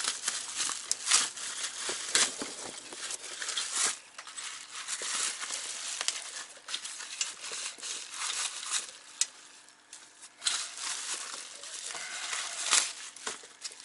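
Plastic wrapping crinkling and rustling as a new coilover shock is handled and unwrapped, in uneven crackles with a short lull about nine seconds in.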